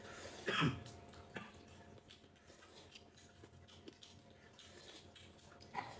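A slurp of spicy broth from a glass bowl: one loud slurp about half a second in that drops in pitch, followed by a few faint eating clicks.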